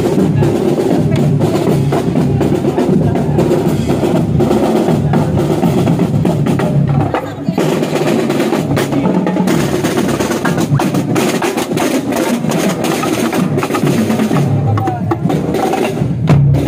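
Marching band drumline playing: snare drums and bass drums beating together. The playing dips briefly about halfway through, then picks up again.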